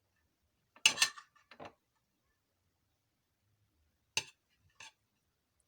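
Kitchen utensils clinking against a dish: a clatter about a second in, a few light ticks after it, then two sharp clinks near the end.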